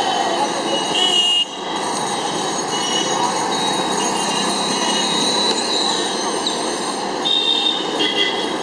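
Busy street traffic: a steady din of engines and motorbikes, with vehicle horns honking on and off throughout.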